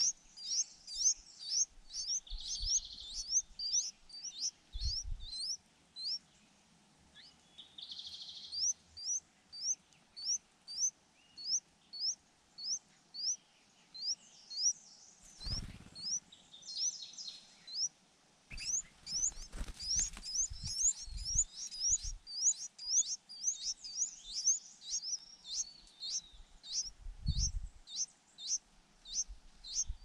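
Crested finchbill nestlings begging at the nest: a long run of short, high, upward-sweeping chirps at about two a second, broken by a couple of brief pauses. A few soft low thumps sound among them.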